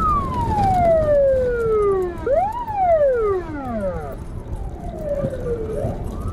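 Police siren in a slow wail, its pitch sliding down and back up in long sweeps, over a steady low rumble of road and engine noise from a car driving fast.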